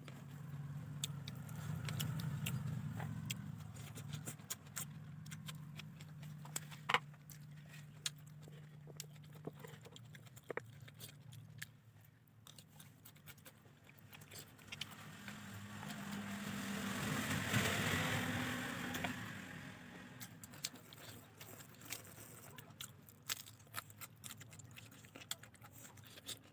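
Close-up chewing and mouth sounds of fried rice being eaten, with many scattered sharp clicks. A low engine hum runs through the first half, and a vehicle passes, swelling and then fading, about fifteen to twenty seconds in.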